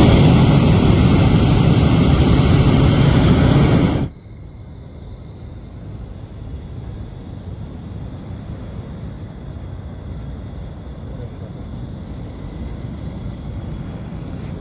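Hot air balloon's propane burner firing, a loud roar that starts suddenly and cuts off abruptly about four seconds in. A quiet, steady low background noise follows.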